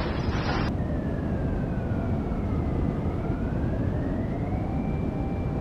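A siren wailing slowly: its pitch glides down, then climbs and holds high near the end, over a steady low rumble. Under a second in, a hissing noise beneath it cuts off abruptly.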